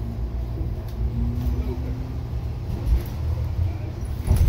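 Cabin noise inside a New Flyer XE60 battery-electric articulated bus on the move: a steady low rumble of the ride, with one sharp thump near the end.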